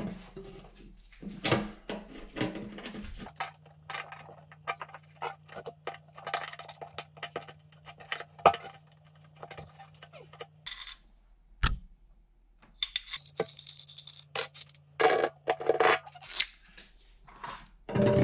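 Scattered metallic clinks, taps and small knocks of hard objects, like tools and parts handled at a stainless steel sink. A low steady hum starts and stops abruptly twice.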